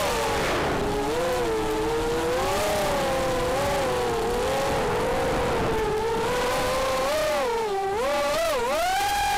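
FPV racing quadcopter's four Cobra 2204 2300KV brushless motors spinning HQProp 4x4.5 bullnose propellers, a whine whose pitch follows the throttle. It drops at the start, wavers through the middle, dips twice near the end and then climbs to a higher, held whine.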